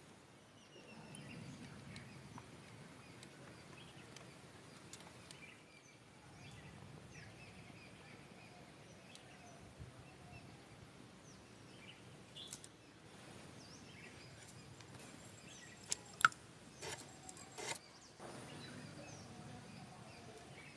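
Faint rural outdoor ambience with scattered small bird chirps. A few sharp clicks or taps late on are the loudest sounds.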